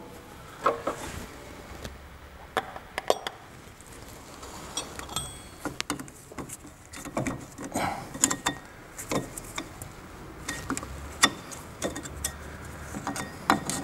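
Irregular light metallic clicks and clinks as the steel U-shaped retaining clips of a rear brake wheel cylinder are worked and slid out from behind the backplate.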